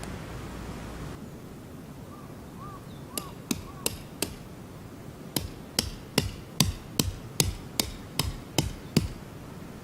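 Hammer striking a tent peg to drive it into the ground: four blows, a short pause, then a steady run of about nine blows at roughly two and a half a second.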